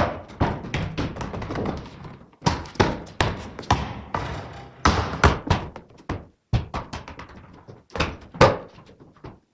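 A basketball bouncing and thudding again and again, an irregular run of sharp echoing thuds, often two or three a second.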